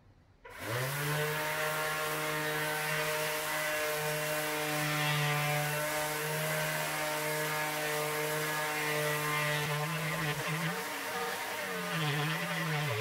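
Electric orbital sander switched on about half a second in, spinning up quickly to a steady whine as it sands the face of a laser-engraved plywood plaque. Near the end its pitch wavers up and down as it is pressed and moved over the wood.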